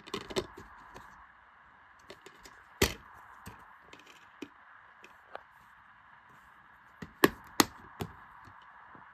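Plastic DVD case being handled: scattered clicks and taps over a steady hiss. Three sharp clicks come close together near the end.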